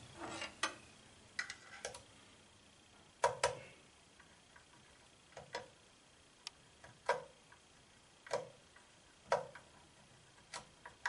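Small, sharp clicks, about a dozen at uneven intervals and often in pairs, as a Phillips screwdriver turns a small screw out of a plastic camera housing.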